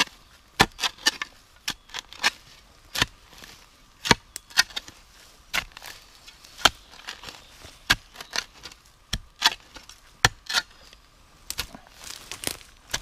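Spade blade chopping repeatedly into grassy forest soil and flinging out dirt: sharp, irregular strikes roughly once a second.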